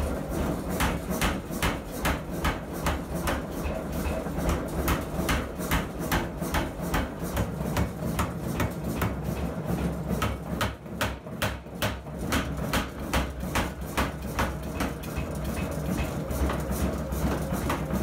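Alldays & Onions 2 cwt pneumatic power hammer forging a glowing hot steel bar: rapid, regular blows of the ram, about three a second, over the steady low hum of the machine running.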